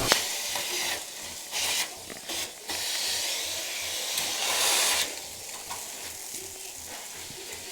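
Air rushing through a central vacuum cleaner's hose and nozzle, a steady hiss that surges louder several times, longest about half way through, then settles lower.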